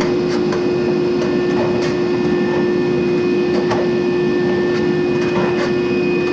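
Frigidaire clothes dryer running: a steady motor and drum hum with scattered light ticks.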